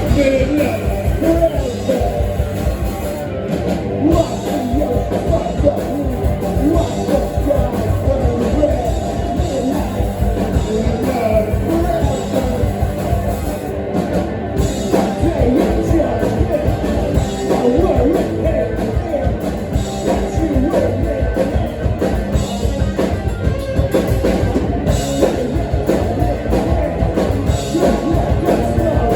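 Live rock band playing loud, with drum kit, distorted guitar and bass, and singing, heard from the room.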